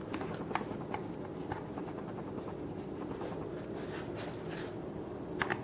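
Faint, scattered clicks and light rustling from handling the plastic diffuser and its power cord while the plug is fitted into the base, over a steady low background hum.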